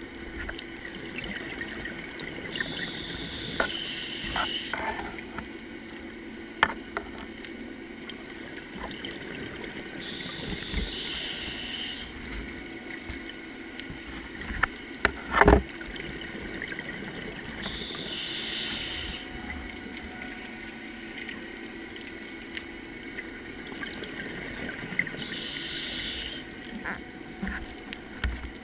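Scuba diver breathing through a regulator underwater: four breaths, each a hiss lasting a second or two, about seven seconds apart, over a steady low hum. Scattered clicks, and one sharp knock about halfway through.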